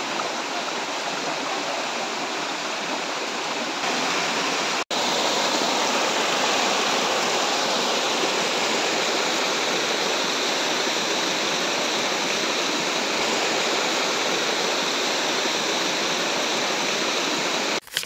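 Stream water rushing steadily over rock slabs and small cascades. There is a brief gap about five seconds in.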